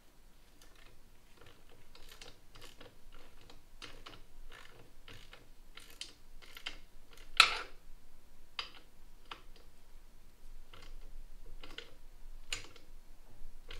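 Hand tools clicking and clinking against metal parts at an uneven pace, with one sharper metallic knock about halfway through.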